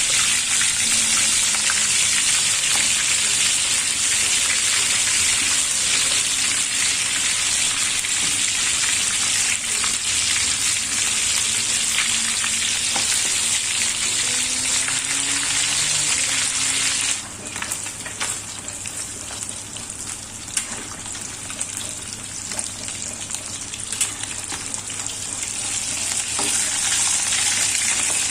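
Chicken frying in a pan, sizzling steadily with a few light clicks. About two-thirds of the way through, the sizzle drops abruptly to a quieter crackle, then builds up again near the end.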